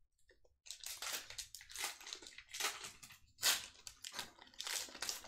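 Pokémon booster pack's foil wrapper being torn open and crinkled, a run of irregular crackles starting just under a second in.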